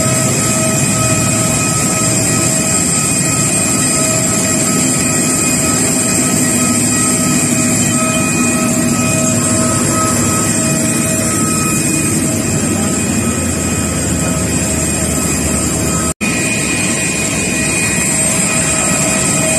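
Jet airliner noise on the apron: a loud, steady rush with several high, steady whining tones over it. It drops out for an instant about sixteen seconds in.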